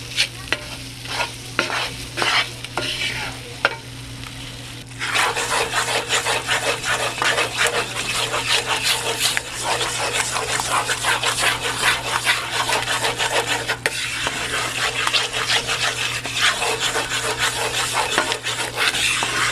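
A spoon scraping and stirring a butter-and-flour roux in a cast iron skillet, with the roux sizzling as it cooks. For the first five seconds there are separate strokes. After that the stirring turns continuous and rapid.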